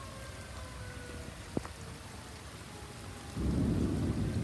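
Steady rain with an outdoor tornado warning siren whose tone is slowly falling in pitch as it winds down. A single sharp click comes about a second and a half in, then a rumble of thunder breaks in suddenly after about three seconds and is the loudest sound.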